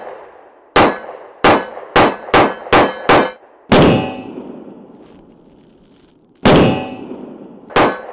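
Sig P365 SAS 9mm micro-compact pistol with a ported barrel and slide firing about nine shots, each with a short ringing tail. Seven shots come in a quick string over about three seconds from near the start, and two more follow a few seconds later near the end.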